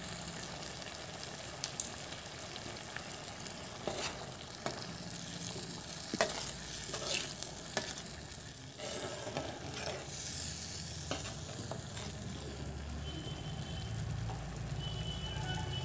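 Mung dal bubbling and sizzling at a boil in a kadai, stirred with a ladle that clicks sharply against the pan now and then.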